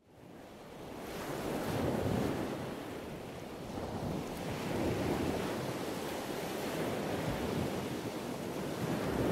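Wind and sea waves heard from the deck of a sailboat under way, with wind rumbling on the microphone. The sound fades in over the first second, then swells and eases every few seconds.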